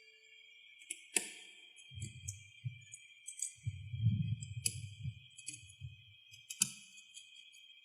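Small metal repair tools clicking and clinking against the parts of an iPhone 12 mini as it is taken apart, with scattered sharp clicks and low muffled handling bumps. A steady faint high-pitched whine runs underneath.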